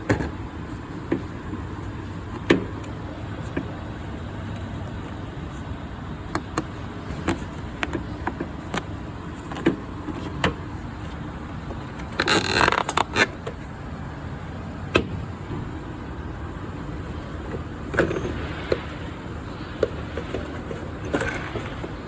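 Hands working at a car's air filter housing: scattered plastic clicks and light knocks, with a brief rustling scrape about twelve seconds in, over steady background noise.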